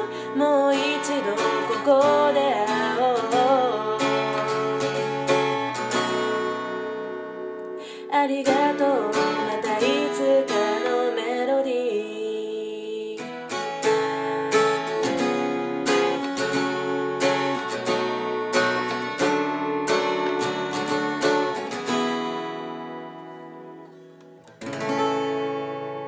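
Acoustic guitar strumming chords as a song's closing section, with a wavering melody line over it near the start and again about eight to eleven seconds in. The playing fades away about 22 seconds in, then one last chord is struck and left ringing.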